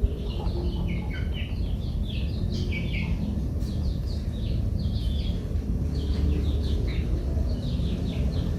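Small birds chirping in quick, busy runs of short falling notes, over a steady low rumble.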